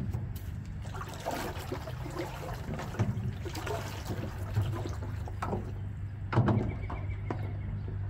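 Water sloshing and trickling in an ice-filled galvanized stock tank, with scattered knocks from handling, the loudest a little past the middle.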